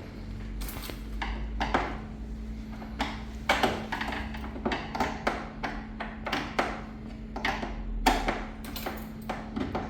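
Screws being taken out of a washing machine's cabinet: irregular clicks and knocks of tool and screws against the metal panel, over a steady low hum.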